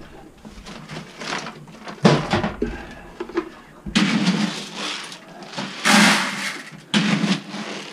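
Chicken feed pellets and their plastic containers being handled, making rustling, clattering noise in several loud bursts. There is a sharp knock about two seconds in.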